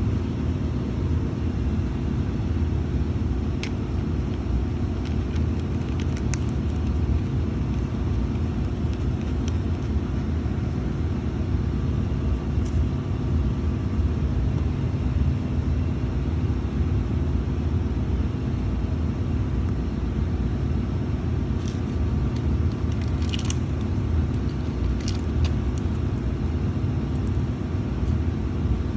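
A steady low rumble, with a few short, light metallic clicks scattered through it and a small cluster of them near the end, as a nut is fitted back onto a lead-acid battery terminal by hand and wrench.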